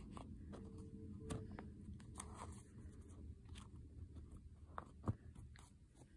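Faint rustling and scattered small clicks of plush toys and small plastic parts being handled right against the microphone, with a sharper knock about five seconds in.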